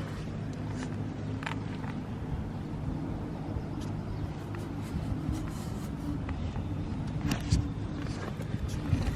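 Honda Rebel 250's air-cooled parallel-twin engine idling steadily, with a few brief clicks over it; the engine runs without abnormal noise.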